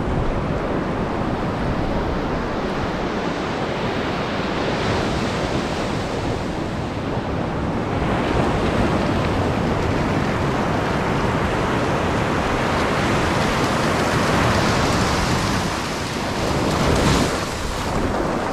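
Sea surf washing onto a beach, with wind buffeting the microphone. The surf grows louder about halfway through and swells most near the end.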